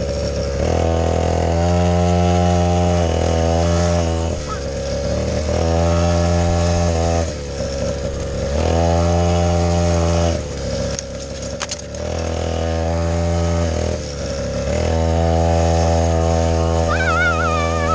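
Small 50cc kids' quad bike engine running at steady high revs. The revs drop briefly and climb back every few seconds as the throttle is eased off and opened again.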